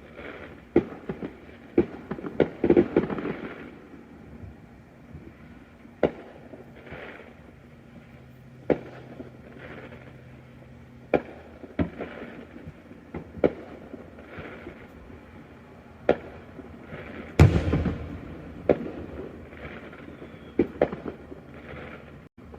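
Neighborhood fireworks going off: a string of sharp bangs and pops at irregular intervals, with a quick cluster a couple of seconds in and the loudest, deepest boom about three quarters of the way through.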